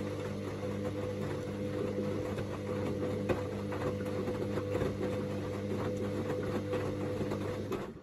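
Hoover DynamicNext front-loading washing machine in its main wash: the drum motor runs with a steady hum while the load tumbles, with small clicks and knocks, then the motor stops near the end.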